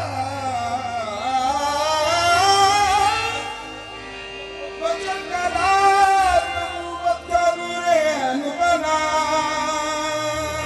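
Live qawwali: a male lead singer's wavering, gliding vocal lines over sustained harmonium-like tones, amplified through the stage sound system. Percussion strokes come in about halfway, after a brief softer passage.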